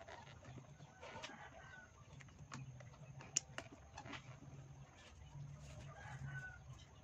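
Chickens clucking, over scattered clicks and a low, on-and-off whirr from a hand-cranked coil winder turning a transformer bobbin.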